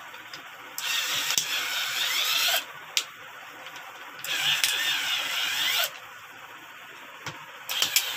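Handheld electric capping machine's motor spinning its chuck in three bursts of about two seconds each, screwing 25 mm plastic caps down onto bottles. Each burst has a whine that dips in pitch and rises again, and a sharp click comes between the first two bursts.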